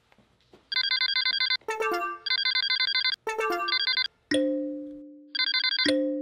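Electronic sound effects: several bursts of rapid trilling beeps like a phone ringing, with quick falling runs of tones between them, and twice a sudden struck tone that rings on and fades over about a second.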